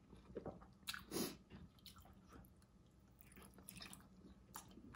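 Faint wet chewing and lip smacks, with a few short clicks, from someone eating saucy shrimp boil by hand.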